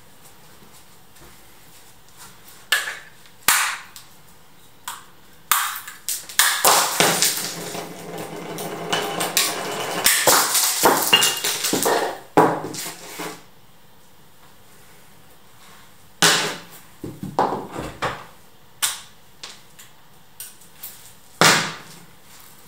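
Ball-peen hammer striking something hard. A few separate blows come first, then rapid repeated hammering for about six seconds. After a short pause there are more scattered blows.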